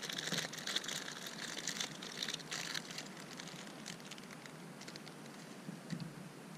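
Plastic bread bag crinkling and crackling as it is torn open by hand, busiest for the first three seconds, then fainter rustling.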